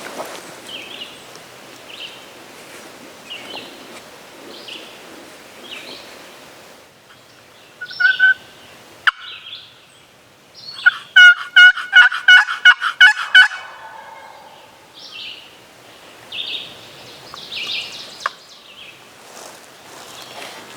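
Wild turkey calling: a loud, evenly spaced run of about a dozen notes, roughly four a second, lasting about three seconds, with two shorter notes a few seconds before it.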